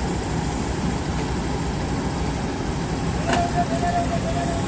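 JCB excavator's diesel engine running steadily. A sharp click comes about three seconds in, followed by short, wavering squeaky tones.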